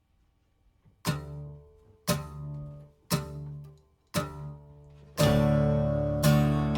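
Background music starting up: four single chords struck about a second apart, each left to ring out, then the full track comes in about five seconds in.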